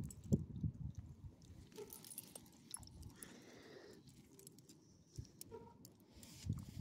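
Metal tags and clip on a small dog's collar jingling while dogs sniff and shuffle on gravel, with soft crunching scuffs that cluster near the start and again at the end.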